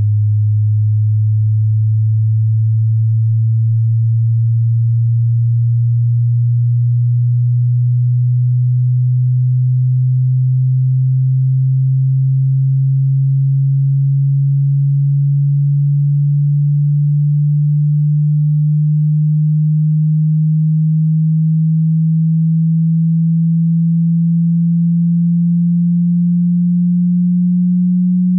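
A pure sine-wave test tone, low and hum-like, gliding slowly and steadily upward in pitch at an even loudness: the low end of a hearing-test frequency sweep from 20 Hz to 20,000 Hz.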